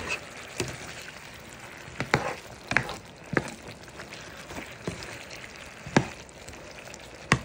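Spatula knocking and scraping against a pan while breaking up sardines among simmering jackfruit chunks, in a series of irregular sharp knocks. Under them the liquid in the pan sizzles steadily.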